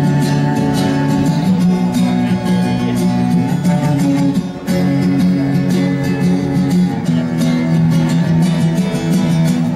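Live indie-rock band playing the instrumental intro of a song: guitar chords held and changing every second or so over a steady beat.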